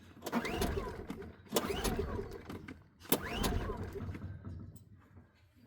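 Recoil starter of a Champion 4500-watt dual-fuel inverter generator pulled three times on propane, each pull a quick whir rising and falling in pitch as the engine is cranked. The engine does not catch.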